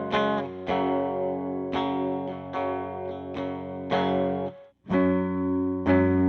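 Electric guitar, a Squier Classic Vibe Jaguar fitted with humbuckers and tuned down to C#, played through a Fender Blues Jr amp on a clean tone: ringing chords struck about once a second. Near the end the sound cuts out briefly before the chords start again, louder.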